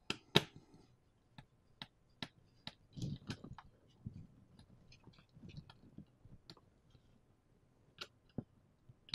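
Small screwdriver turning the screws of a screw-terminal (Euroblock) connector on a 3D printer control board, giving irregular small clicks and ticks, with soft handling noise from the wires.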